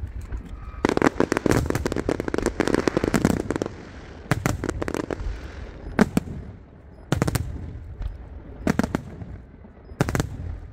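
Fireworks going off: a rapid crackling string of bangs for about three seconds, then single sharp shell bursts, five of them, each a second or so apart.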